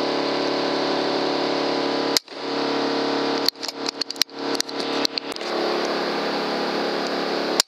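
A steady machine hum at a fixed low pitch, broken several times by abrupt cut-offs and a few sharp clicks.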